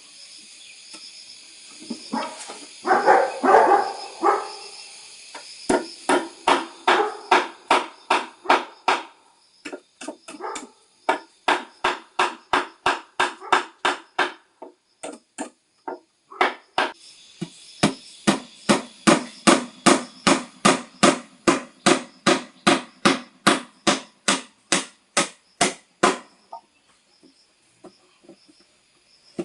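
Rapid, regular strikes of a hand tool, about three a second, in long runs with a couple of short pauses, over a steady high chirring of insects. A louder, rougher burst of noise comes about three seconds in.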